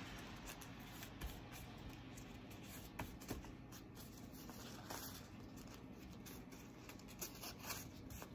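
Faint rustling and brushing of blue sterilization wrap as hands fold and smooth it over wrapped surgical instruments, with a few soft ticks scattered through.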